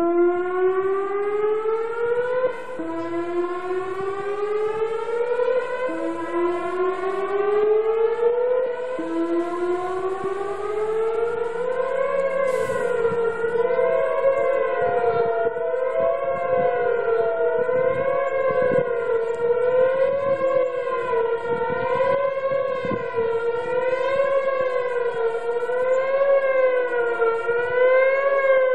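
Outdoor warning siren sounding for a routine test. It comes on suddenly with a series of rising sweeps, one about every three seconds, then settles about twelve seconds in into a wavering tone that rises and falls roughly every second and a half.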